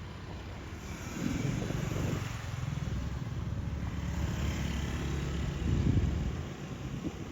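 A motor vehicle's engine running past close by, getting louder about a second in, loudest near six seconds, then fading.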